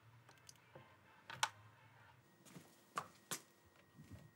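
A few faint, sharp clicks and knocks, a second or two apart, over quiet room tone.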